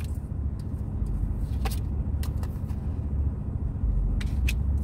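Tarot cards being handled: a few short, sharp clicks and taps spread through, over a steady low rumble.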